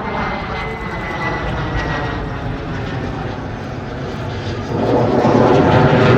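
Fixed-wing aircraft engine noise as a plane flies at an airshow: a steady roar with a faint whine that falls slightly in pitch. Near the end the sound jumps suddenly to a louder broad noise.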